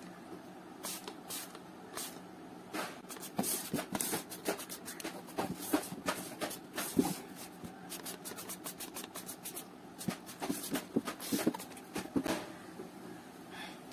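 Hands rubbing and turning a corrugated cardboard box, giving an irregular run of rustles, scrapes and light knocks on the cardboard.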